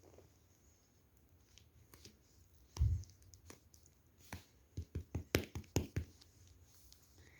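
Handling noises from small objects: a soft thump about three seconds in, then a quick run of about eight sharp taps and clicks.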